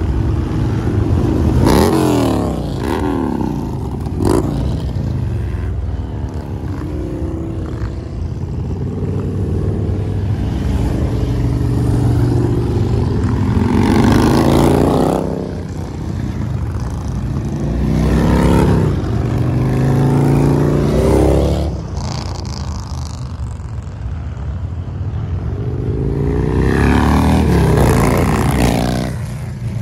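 A procession of big touring motorcycles riding past one after another. Each engine note swells as a bike approaches and falls in pitch as it goes by, over a steady low rumble from the rest of the line.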